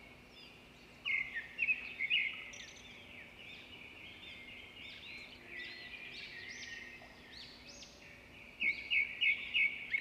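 Small birds chirping and twittering, with many short overlapping calls; loud runs of quick repeated notes come about a second in and again near the end, the second run at about three notes a second.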